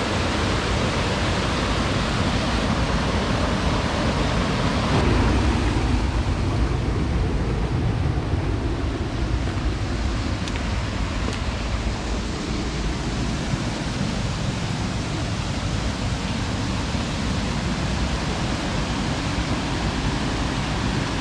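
Steady rush of water from a small mountain stream pouring over a waterfall, with wind buffeting the microphone.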